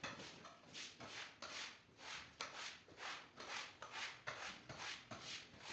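Faint, rhythmic rubbing strokes of a cleaning tool worked back and forth over a wet rug, about three strokes a second.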